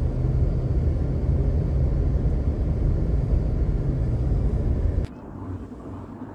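Steady low rumble of a running engine, which cuts off suddenly about five seconds in and leaves a much quieter background.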